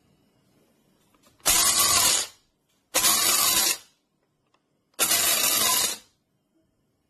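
Bodum Bistro electric blade coffee grinder running in three short pulses of about a second each, starting and stopping abruptly.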